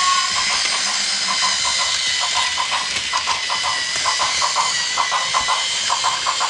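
A small battery-powered toy train motor whining steadily, with rapid irregular chirps layered over it.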